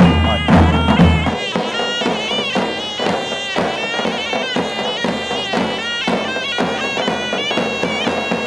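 Davul and zurna wedding music: a shrill zurna plays a wavering, ornamented folk melody over steady strokes of two big double-headed davul drums. A low rumble sits under the first second and a half.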